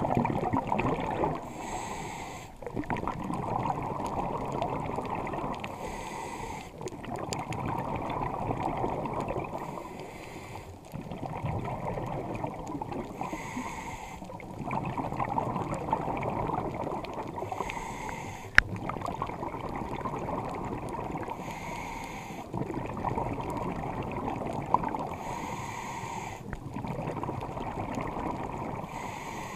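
A scuba diver breathing through a regulator, heard underwater. About every four seconds there is a short hiss on the inhale, followed by a longer bubbling rush of exhaled air. Two sharp clicks come in the second half.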